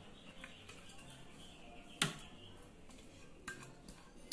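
Quiet room tone with a sharp click about two seconds in and two lighter clicks near the end: a utensil knocking on a metal baking pan while béchamel sauce is spooned into it.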